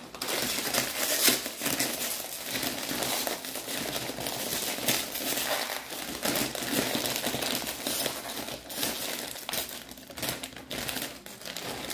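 Crinkly foil bag of Ruffles potato chips being shaken and handled, crinkling throughout with many sharp crackles.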